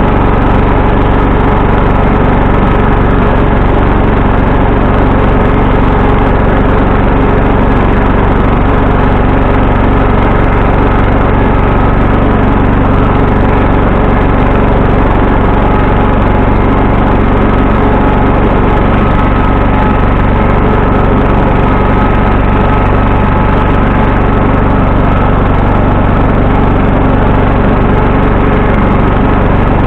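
1974 John Deere 140 H3 garden tractor's single-cylinder engine running steadily, loud and unchanging.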